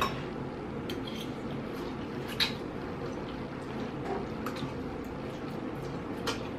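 Spicy noodles being slurped and chewed by two people: wet mouth sounds with a few short, sharp slurps or clicks.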